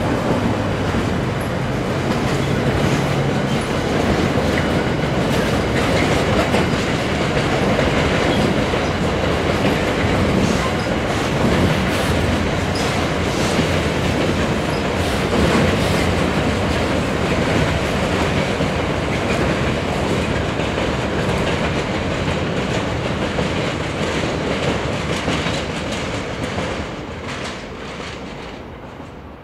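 Loaded freight wagons of a diesel-hauled train rolling past, their wheels clattering over rail joints and pointwork with occasional wheel squeal. The Class 70 locomotive's engine note fades within the first few seconds, and the rolling noise dies away near the end as the train recedes.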